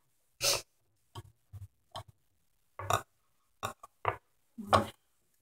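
Small plastic Lego minifigure parts handled and pressed together close to the microphone: a run of about nine short, irregular clicks and knocks, the loudest near the end.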